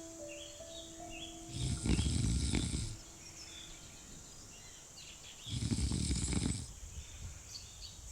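A person snoring in slow, even breaths: two snores about four seconds apart, each lasting a little over a second.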